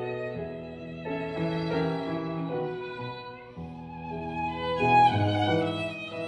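Instrumental music: a violin melody over sustained low notes.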